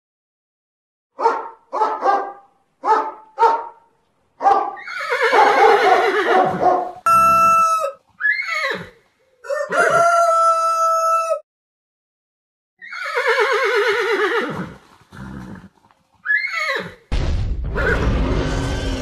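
A run of animal sound effects. First come four short bark-like calls, then several long rooster crows (cock-a-doodle-doo). Near the end a loud, rough roar begins.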